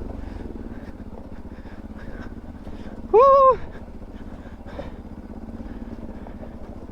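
A Bajaj Pulsar NS200 single-cylinder motorcycle engine running steadily at low revs. About three seconds in, a loud high-pitched hoot lasts half a second.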